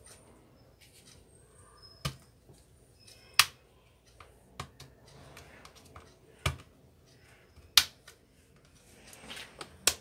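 Sharp plastic clicks, about six of them at uneven intervals, the loudest a little after three seconds and near eight seconds, as the back cover of a Lenovo Tab A5500 tablet is pried along its edge with opening tools and its clips snap loose.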